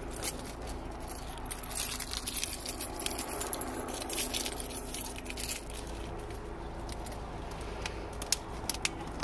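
Light metallic jingling and scattered small clicks over a steady low hum of background noise.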